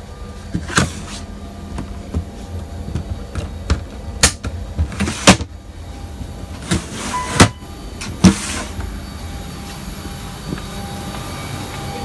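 Steady hum of an airliner cabin's air system, broken by about five sharp knocks and thumps and a few lighter clicks.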